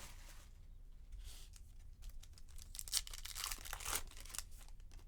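A baseball card pack's wrapper crinkling and tearing open, in short crackles about a second in and a longer run of crackling toward the end.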